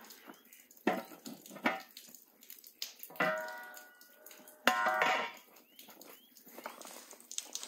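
Large metal cooking cauldron (kazan) being set down on a stack of firewood with a few dull knocks, then its metal lid clanking against it twice, each clang ringing for under a second. Steps crunch in snow around it.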